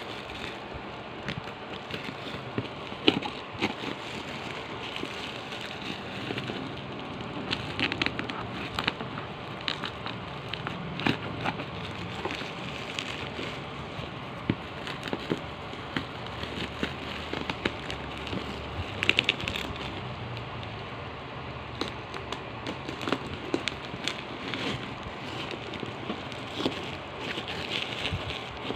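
Thin plastic wrapping crinkling and rustling as it is handled and pulled off a cardboard box, with many irregular sharp crackles.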